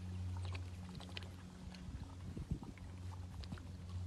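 Baby elephant suckling milk from a large feeding bottle, with many small wet clicks and slurps, over a steady low hum.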